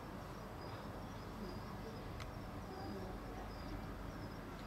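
Quiet background ambience with faint, short high-pitched chirps coming every half second or so, and a soft click about two seconds in.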